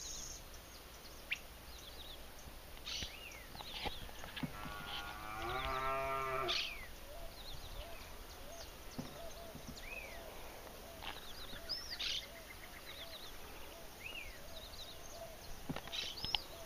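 A zebu cow mooing once, a single low, steady call lasting about two seconds near the middle.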